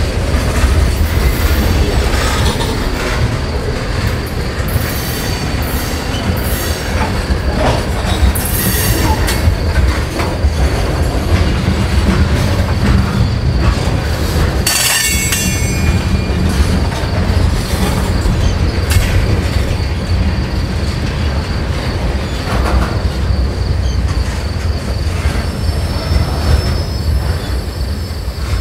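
Norfolk Southern freight train's tank cars rolling past at close range: a steady low rumble of wheels on rail, with high-pitched wheel squeals coming and going, the sharpest about halfway through.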